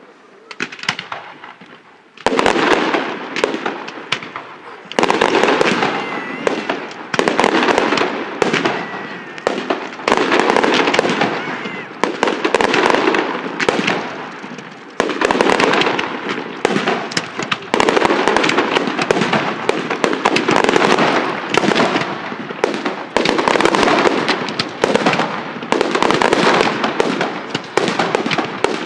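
Fireworks finale: aerial shells bursting in rapid, overlapping succession, a near-continuous barrage that starts about two seconds in.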